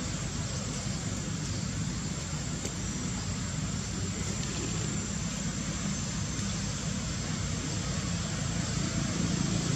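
Steady low rumble with an even hiss of ambient background noise, unchanging throughout; no monkey calls stand out.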